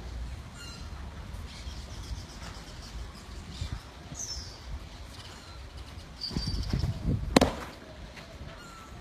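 Wind rumbling on the microphone with a few faint bird chirps; about seven seconds in, one sharp smack of a baseball popping into a leather glove.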